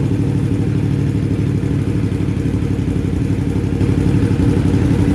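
Motorcycle engine idling steadily through an aftermarket SC-Project-style slip-on exhaust, with a deep, full note that gets slightly louder about four seconds in.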